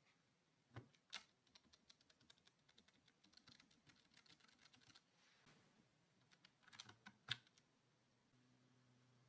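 Typing on a Vortex VX8 mechanical keyboard with PBT XDA-profile keycaps: a fast run of keystroke clicks, with two louder strokes about a second in and a cluster ending in one loud stroke near the end.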